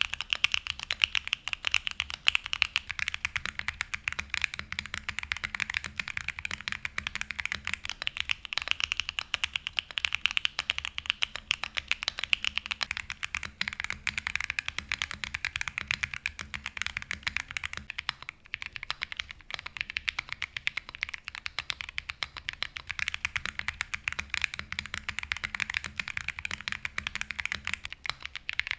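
Mechanical keyboard typing test: fast, continuous keystrokes on Akko Cream Blue Pro tactile switches. After a brief break about 18 seconds in, the typing continues on Holy Panda tactile switches.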